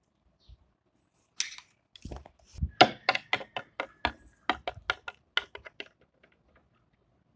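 Small plastic toys tapping and clacking on a wooden tabletop: a brief rustle, then a quick run of sharp taps, about four a second, for a few seconds.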